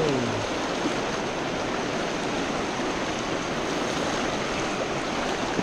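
Fast, shallow mountain stream running over rocks through riffles: a steady, even rush of water.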